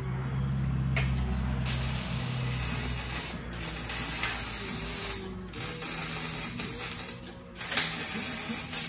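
Exhaust-shop power tool noise: a steady, noisy mechanical sound that stops briefly about three times, with a low steady hum underneath during the first couple of seconds.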